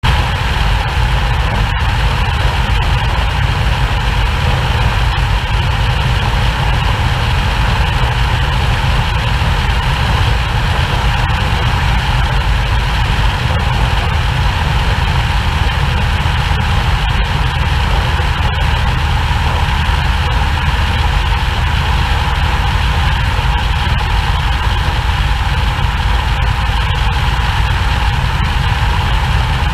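Steady drone of a Cessna 150's four-cylinder Continental O-200 engine in cruise flight, mixed with rushing airflow over a camera mounted outside the cabin.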